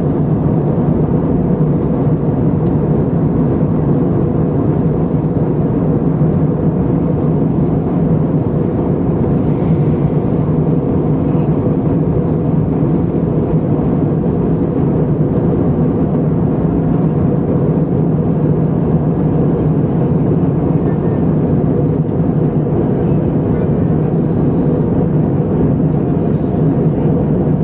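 Steady cabin noise inside an Airbus A320 airliner: a constant low rumble of engines and airflow, unchanging throughout.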